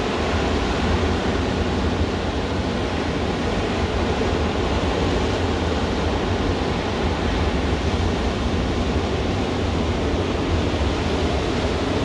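Ocean surf breaking and washing up a sandy beach: a steady rushing noise with a strong low rumble underneath, no single wave standing out.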